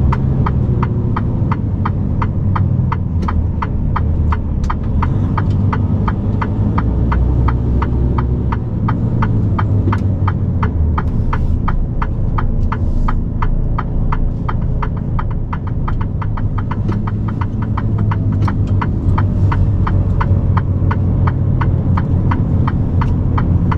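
Truck turn-signal indicator ticking in a quick, even rhythm inside a Mercedes-Benz Actros SLT cab, over the steady low drone of the truck's engine.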